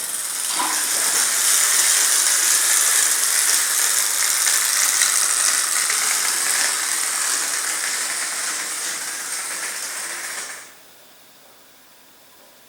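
Clockwork wind-up toy mouse running: its spring-driven gear train whirring with a steady rattle for about ten seconds, fading slightly, then stopping abruptly as the spring runs down.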